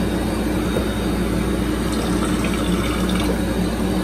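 Cold purified water streaming steadily from a water-dispenser spout into a glass carafe as it fills, with a steady low hum underneath.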